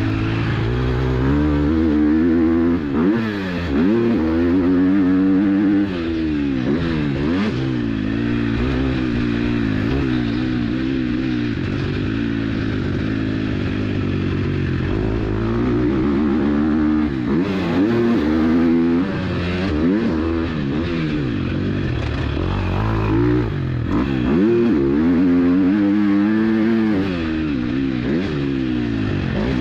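A KTM SX-F 250 motocross bike's single-cylinder four-stroke engine is ridden hard. It revs up and drops off again and again, its pitch rising and falling every second or two as the throttle opens and closes.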